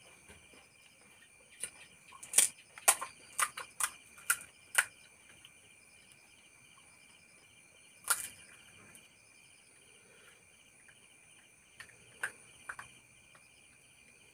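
Sharp crisp clicks and crunches from pani puri being cracked open and eaten: a quick run of about eight a couple of seconds in, one about eight seconds in, and a few more near the end. Under them, a steady chorus of crickets chirps.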